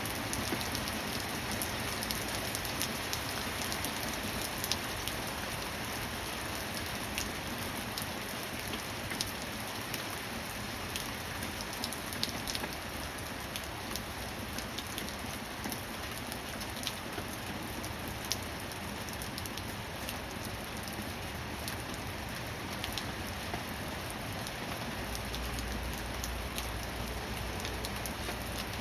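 Steady rain falling on a surface, an even hiss with scattered sharp drips. Near the end a low rumble joins it.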